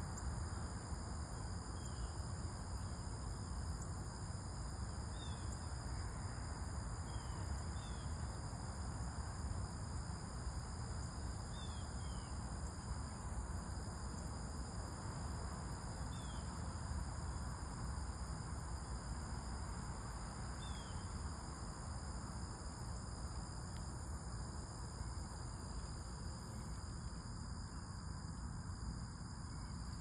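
Steady high-pitched chorus of insects trilling without a break, over a steady low background rumble. Several short, faint, falling bird chirps come through in the first twenty seconds or so.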